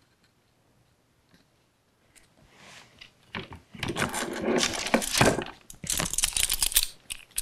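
Metal bar clamps clinking and clattering as they are picked up and handled on a workbench, starting about three and a half seconds in after a near-silent stretch.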